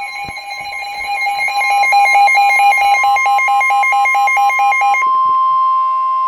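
Electronic emergency alert tones: a two-pitch warbling alarm switching about four times a second, changing about five seconds in to a steady two-tone attention signal.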